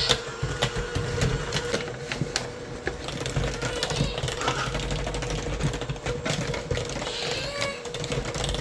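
Electric hand mixer running steadily through cake batter in a ceramic bowl: a constant motor whine over a low rumble, with many irregular clicks and knocks.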